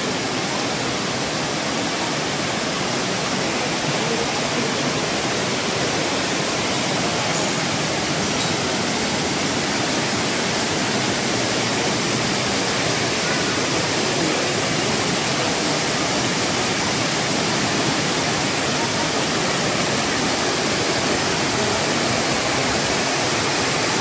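Steady rush of falling water: an even, unbroken hiss.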